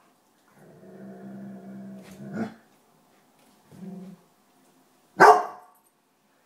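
Dog growling low and steadily for about two seconds, ending in a short bark, then a brief growl and one loud, sharp bark about five seconds in: fearful, defensive growling and barking at a Halloween decoration that frightens it.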